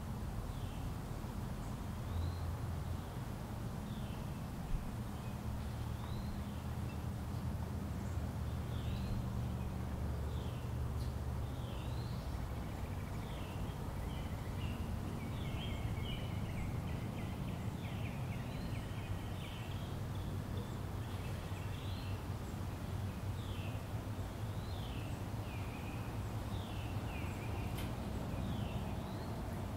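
Outdoor ambience: many small birds chirping, short quick calls repeating all through, busiest in the middle, over a steady low rumble.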